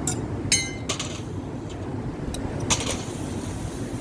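Steel blacksmith's tongs clinking as they are handled. One sharp ringing clink comes about half a second in, a second comes near the end, and there are lighter ticks between, all over a steady low rushing background.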